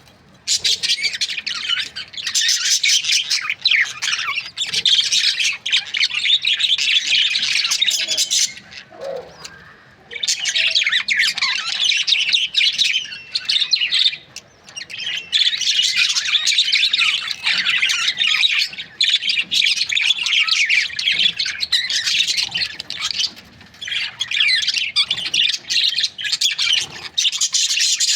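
Budgerigars chirping and chattering, many calls overlapping in dense, rapid high warbles. The chatter breaks off in a few short lulls of about a second, then starts again.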